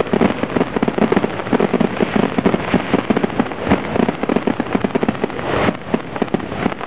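Fireworks grand finale: a dense, continuous barrage of rapid bangs, many a second, with no let-up.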